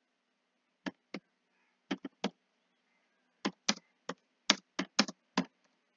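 Computer keyboard keys struck one at a time in slow, uneven hunt-and-peck typing: about eleven separate clicks in pairs and short runs, with pauses between them.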